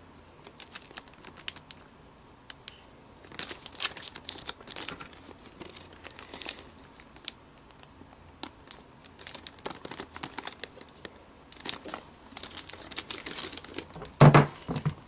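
Packaging crinkling and rustling in irregular bursts as a new Mac Mini's box contents are unwrapped and handled, with a short low thump near the end.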